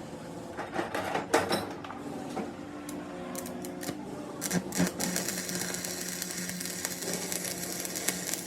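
A few metal clicks and knocks, then a small electric power tool starts about five seconds in and runs steadily with a constant hum and high whir.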